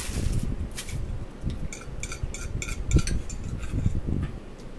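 Forks clinking and scraping on dinner plates during a meal, with a quick run of light ringing taps about two seconds in and a dull knock about three seconds in.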